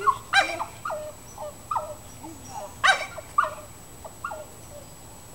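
Kromfohrländer barking excitedly, a run of about ten short, high barks and yips that stops about four seconds in.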